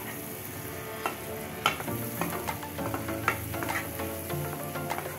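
A slotted spatula stirring paneer cubes through a thick masala paste in a non-stick kadai on high flame. It scrapes and taps the pan in short, irregular strokes over the sizzle of the frying masala.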